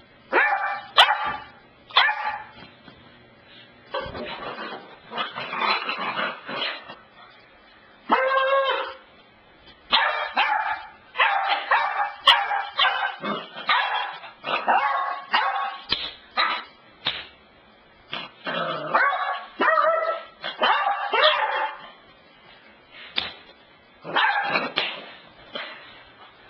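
Puppy barking and yipping excitedly in short bursts and rapid runs, in play while being teased with a ball.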